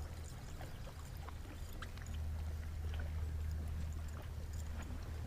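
Water splashing and trickling around a small fishing boat, with scattered small clicks over a steady low rumble that grows louder about two seconds in.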